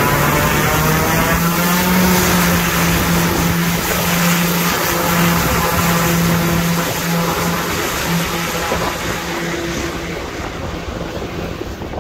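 Twin-engine turboprop airplane at takeoff power, its propellers giving a steady loud drone as it starts its takeoff roll. The sound grows fainter over the last few seconds as the plane runs away down the runway.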